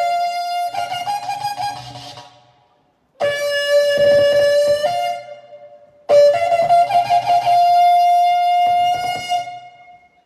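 Shofar (ram's horn) sounded in three long blasts, each starting on a lower note and stepping up to a higher held note; the last blast is the longest.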